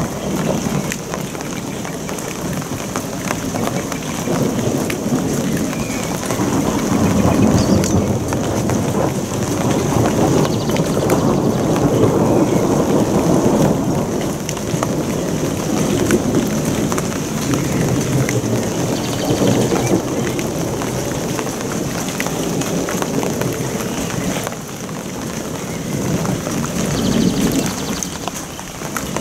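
Thunder rumbling in long rolls that swell and fade several times, over steady rain.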